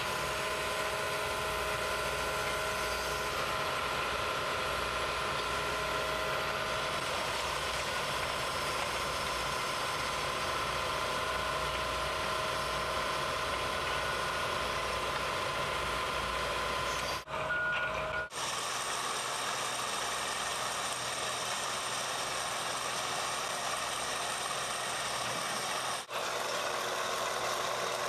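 Hi-rail excavator with a saw-equipped tie-handling head running: steady heavy machinery noise with several steady high-pitched tones held over it. After a brief break about two-thirds of the way in, the machinery noise carries on thinner, without the deep rumble.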